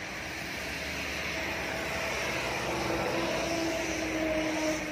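A road vehicle approaching on a wet road. Its tyre hiss and engine noise grow steadily louder for about four seconds, with a faint hum rising out of it in the second half, then ease off near the end.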